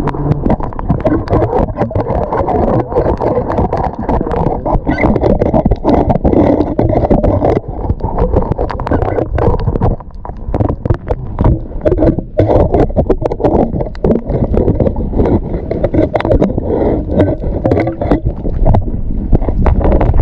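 Water sloshing and splashing close to the microphone, with knocks from the camera being handled in the water.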